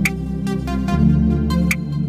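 Electronic background music with a steady drum beat over sustained bass notes.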